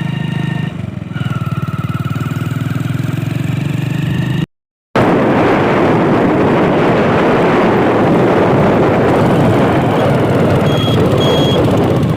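A motor vehicle's engine running steadily. After a brief cut, a loud, even rush of driving noise and wind takes over, with two short high beeps near the end.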